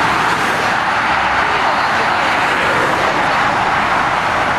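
Steady noise of dense motorway traffic, lorries and cars passing at speed.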